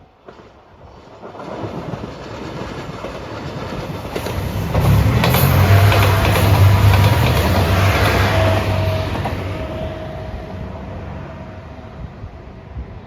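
Train passing over a level crossing, its wheels clacking over the rail joints. It grows louder to a peak about midway and then fades away.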